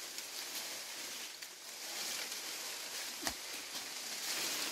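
Leaves rustling steadily as a tree branch is shaken, with one sharp knock about three seconds in.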